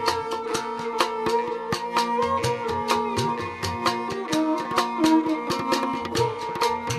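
Background music: a plucked-string melody over a steady drone, with a quick, even percussion beat.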